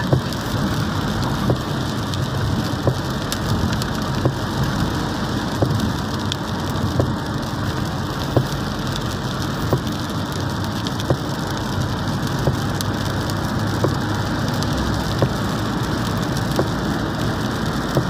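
Heavy rain hitting a moving car's roof and windscreen, heard from inside the cabin as a steady wash of noise with sharper single drop hits every second or so, over the running of the car on a wet road.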